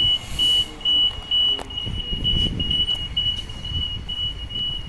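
Rapid, high-pitched beeping of a railway pedestrian crossing warning, about four to five beeps a second, over a low rumble from the train traffic, with a single sharp click about a second and a half in.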